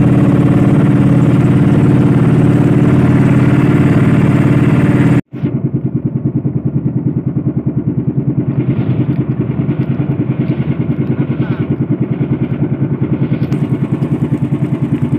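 Small engine of a motorized outrigger boat running steadily with an even, low throb. It drops out for an instant about five seconds in and comes back duller.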